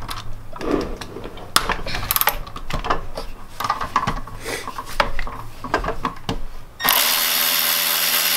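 Metal clicks and clinks of hand tools and sockets being handled on a small engine. About seven seconds in, a steady loud hiss with a low hum starts suddenly as compressed-air equipment begins running.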